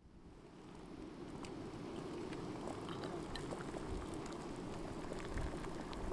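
Water at a rolling boil in a pot on a Primus gas-canister camping stove, bubbling steadily with many small pops. It fades in from silence at the start and builds over the first second.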